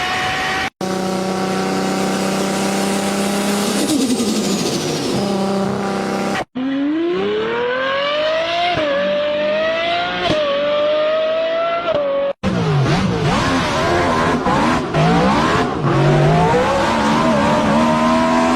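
High-performance car engines in a run of four short clips with abrupt cuts between them, each revving under acceleration. The pitch climbs and falls back at each gear change, and in one clip it drops away as the car passes by.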